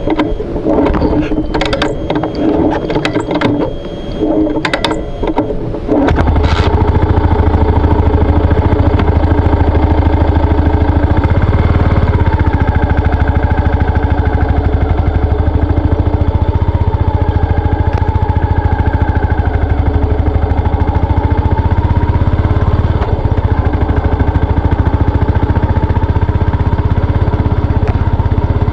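Yamaha SR400 single-cylinder engine starting about six seconds in after a few seconds of irregular clicks and knocks, then running steadily with a low rumble.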